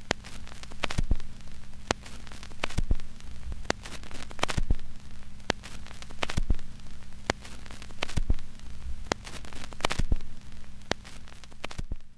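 Crackle and frequent pops over a steady low hum, like the surface noise of an old recording, swelling and fading about once a second.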